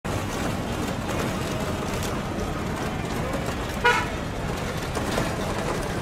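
Town street traffic with a steady rumble of passing vehicles, and one short vehicle-horn toot about four seconds in.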